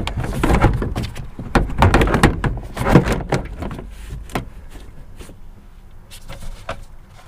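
A molded plastic rear parcel-shelf trim panel being handled and pressed into place by hand. There is a quick run of knocks and clicks in the first three seconds, then fainter scattered clicks.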